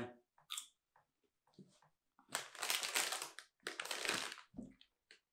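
Plastic snack bag of Snickers chocolate popcorn crinkling as it is picked up and handled, in two crackly bursts about two and four seconds in.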